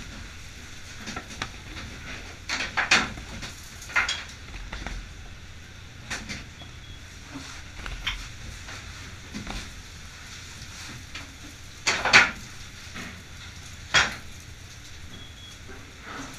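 Intermittent knocks and clatters of fish being packed into boxes in a fishing boat's fish room, loudest about three seconds in and twice near the end, over the steady low hum of the vessel's machinery.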